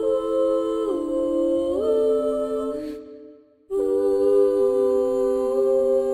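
Gentle wordless music of hummed voices holding soft chords, the notes stepping down every second or so. It fades away about three seconds in and starts again on a new chord a moment later.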